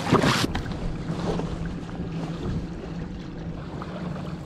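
Kayak out on calm open water: a steady low hum with light wind and water noise. A loud rushing noise opens the sound and stops about half a second in.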